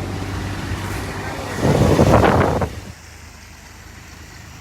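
An engine running steadily with a low hum. A loud rushing burst comes in over it for about a second, then everything drops suddenly to quieter background noise a little before three seconds in.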